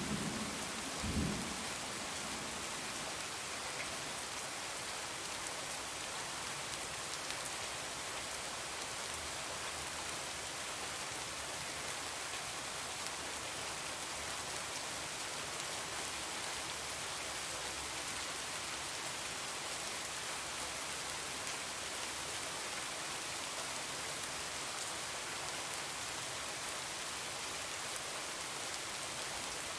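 Steady heavy rain falling, an even hiss of drops on surfaces, with a brief low rumble of thunder about a second in.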